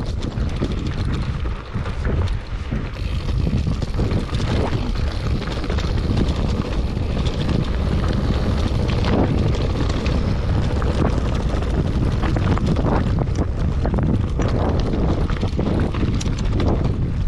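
Wind buffeting the microphone on a mountain bike riding a rocky trail, with the crunch of tyres over loose stones and frequent rattles and clicks from the bike.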